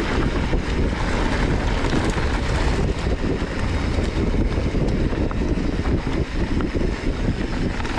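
Wind rushing over a GoPro Hero8's microphone on a moving mountain bike, with the tyres and bike rattling over a loose dirt trail in scattered small clicks.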